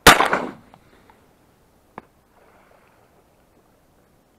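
A single loud shotgun shot, its report fading away over about half a second. A faint click follows about two seconds later.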